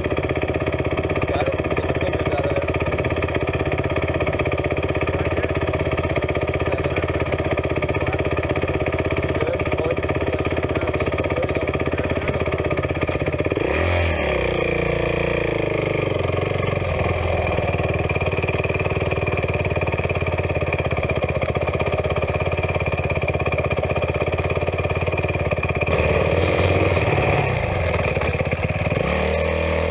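Dirt bike engine running steadily, heard close up from a camera mounted on the bike. The revs rise and fall once about halfway through, and rise and fall a few more times near the end.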